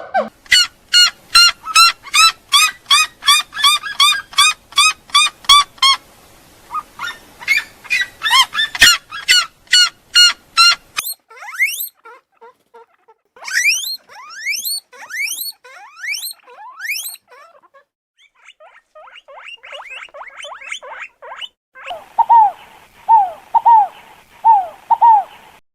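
A series of different bird calls, one kind after another: rapid repeated chirps at about three a second, then rising whistled calls, then short falling calls repeated near the end.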